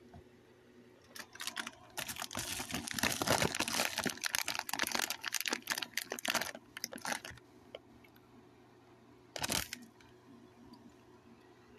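Rapid rustling, crackling clicks: a dense run starting about a second in and lasting some six seconds, then one short burst near the end.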